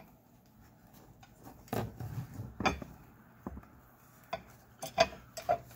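Metal roof rack bracket being handled and fitted, giving a scattering of sharp metallic clinks and knocks, several close together near the end.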